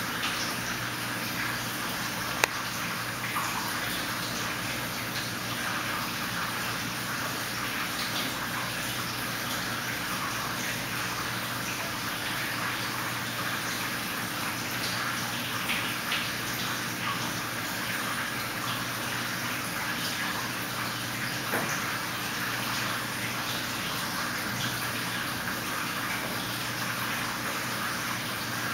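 Steady, water-like rushing background noise with a low hum under it, and one sharp click about two and a half seconds in.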